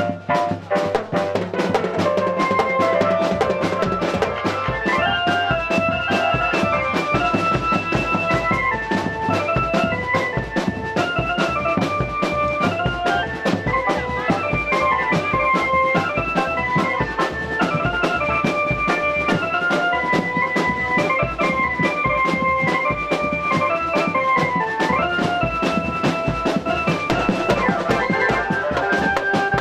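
A street drum band plays: marching tenor drums and a bass drum beat a fast, steady rhythm under an electronic keyboard playing an organ-toned melody.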